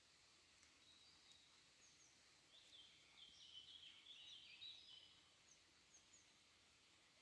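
Near silence with faint, distant birdsong: a run of short high chirping notes about halfway through, and a few thin chirps scattered around it.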